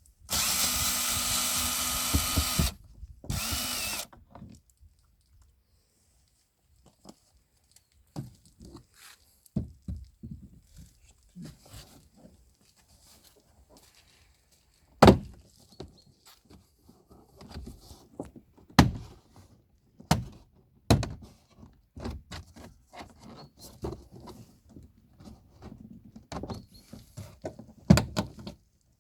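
A power drill runs steadily for about two seconds, then briefly again with its pitch gliding as it speeds up and slows down. Scattered knocks and clicks of tools and metal parts being handled follow, a few of them sharp and loud.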